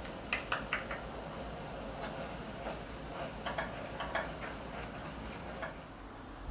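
Scattered light clicks and clinks of kitchen work, about a dozen sharp ticks, over a steady hiss that drops a little near the end.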